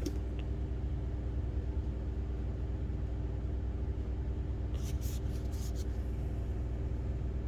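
Steady low machine hum, with a few brief faint clicks about five seconds in.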